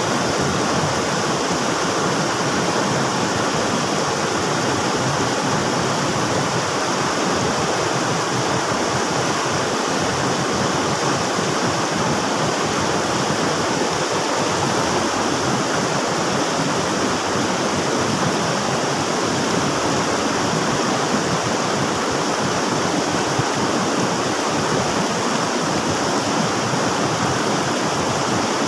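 River water rushing, a steady, even roar of flowing water without a break.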